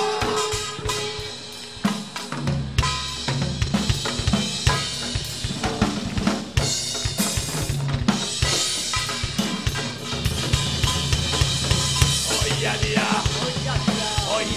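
Drum kit playing a beat on bass drum, snare and cymbals, with the bass drum coming in about two seconds in, joined by a small hand-held Korean gong (kkwaenggwari) struck with a mallet.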